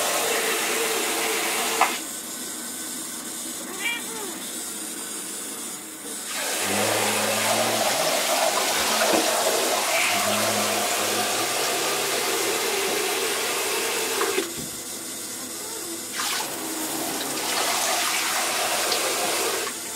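Water running from a handheld shower head into a bathtub, a steady spray that grows louder and softer by turns as the spray shifts.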